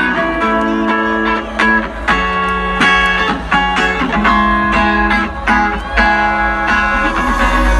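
Loud electronic dance music over a festival sound system: a plucked, guitar-like riff in repeated chords that change every second or so over a steady deep bass.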